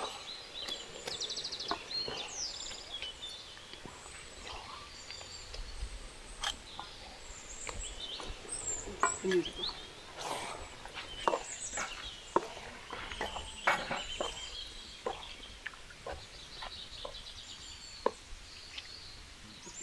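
Scattered knocks and scrapes of a utensil in a cooking pot as ground tomato paste is added to fried onions and stirred. Birds chirp throughout in the background.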